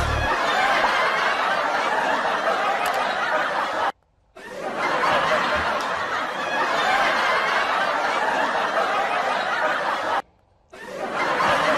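Laughter from a group of people, like a laugh track laid over the clip, breaking off into silence twice: briefly about four seconds in and again near the end.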